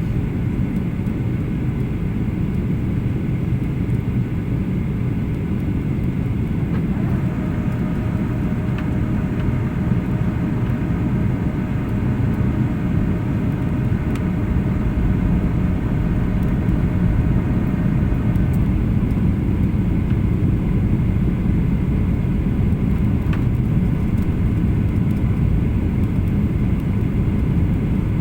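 Cabin noise of a Boeing 737-800 airliner in flight: a steady, loud rumble of engines and airflow that grows slightly louder over the second half. A steady whine of several tones joins in about seven seconds in and stops abruptly about eleven seconds later.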